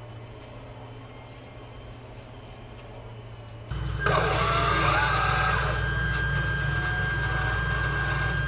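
Inside a Bradley fighting vehicle's turret: a low steady hum, then about four seconds in a louder steady rumble of the vehicle's diesel engine running, with a high steady electronic whine from the turret systems over it.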